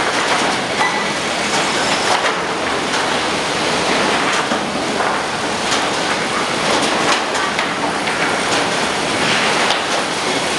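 Sawmill lumber-handling line running: a steady machine din with an irregular clatter and knocking of boards travelling over roller conveyors.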